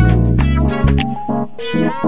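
Background music with plucked guitar and bass notes.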